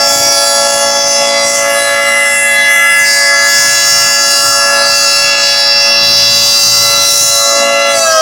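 Federal Signal 2T22 two-tone outdoor warning siren sounding its steady Alert signal, a loud chord held at constant pitch. Near the end the pitch starts to drop as the siren begins to wind down.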